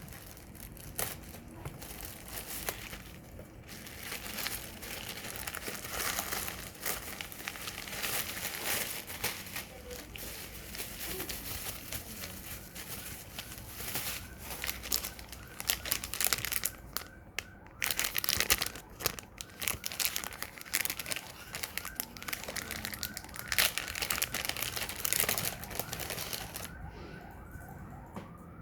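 Packaging being handled and opened: plastic and cardboard crinkling, rustling and tearing in irregular bursts with small clicks. A rising siren-like tone starts near the end.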